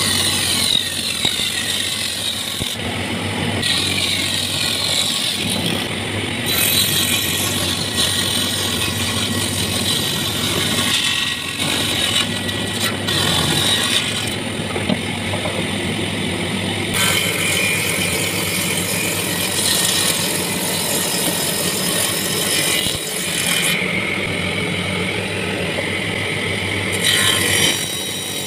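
Homemade table saw running: a 1 HP electric motor turning a circular saw blade's shaft by V-belt, with a steady hum, and the sound changing every few seconds as wooden boards are fed through the blade.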